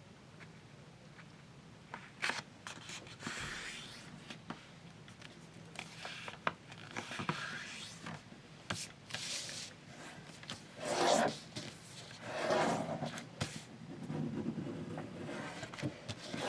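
A sheet of paper being folded and creased by hand for a preliminary fold: irregular rustling and sliding with sharp crinkles and swipes as the fold is pressed flat, in spells that grow louder in the second half.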